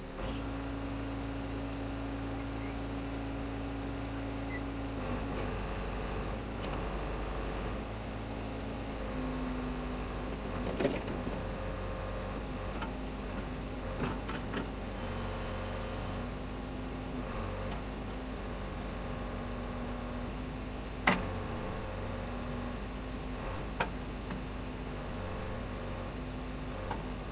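John Deere backhoe loader's diesel engine running steadily, its pitch stepping up and down as the backhoe boom is worked. A few sharp knocks ring out over it, the loudest about 21 seconds in.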